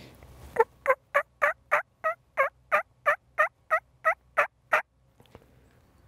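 Turkey yelping: a run of about fourteen loud, evenly spaced yelps, about three a second, stopping about five seconds in.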